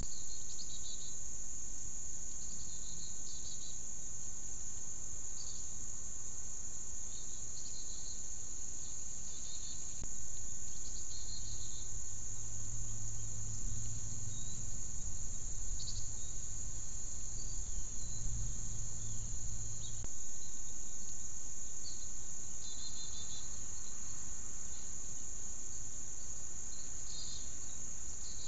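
Steady, high-pitched insect chorus, with short chirps now and then just below it. A low hum comes in for about ten seconds in the middle.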